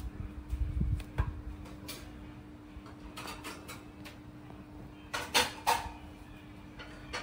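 Scattered light clicks and knocks over a steady low hum, with three sharp clicks in quick succession about five seconds in, the loudest sounds.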